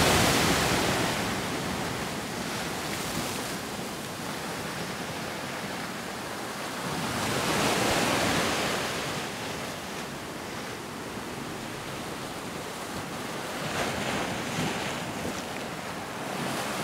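Ocean surf: waves washing in and breaking as a steady rush, swelling loudest at the start and again about halfway through, with a smaller swell near the end.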